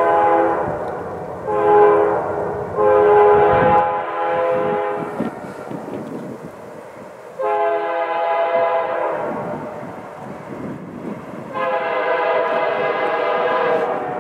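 Canadian National GE C44-9W diesel locomotive's multi-note air horn sounding a series of blasts for the road crossing: one ending about a second in, a short one, a longer one, then two long blasts later on, the last running to the end. The train's rumble sits beneath them.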